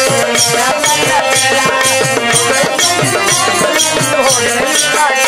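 Instrumental interlude of a Bhojpuri devotional folk song: a harmonium melody over a dholak drum and small jingling hand cymbals keeping a steady beat.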